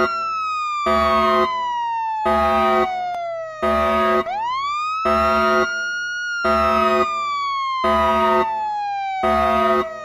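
Synthesized emergency-alert alarm: a siren tone that rises quickly, then falls slowly over about four seconds, sounded twice, over a blaring pulsed tone repeating about every 1.3 seconds. It cuts off near the end.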